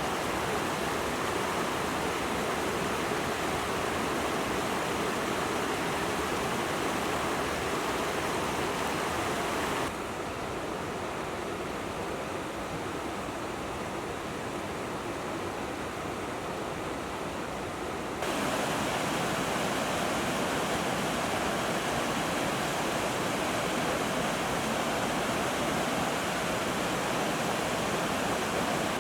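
Steady rush of flowing water. It turns abruptly quieter and duller about ten seconds in, then abruptly louder again about eight seconds later.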